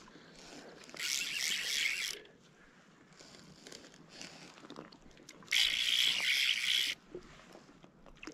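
Fly line being stripped in by hand while fishing from a float tube: two long hissing pulls of line, about a second in and again about five and a half seconds in.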